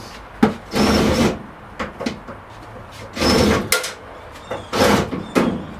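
Three short bursts of a power drill driving screws into the wall to mount a metal network cabinet, with clicks and knocks of the cabinet being handled between them.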